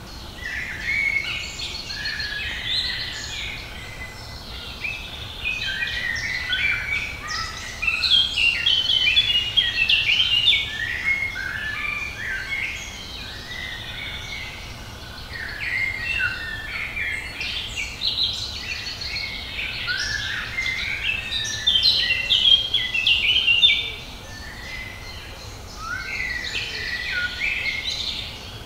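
Several songbirds singing and chirping at once, a dense chorus of overlapping short phrases, louder about a third of the way in and again toward the end.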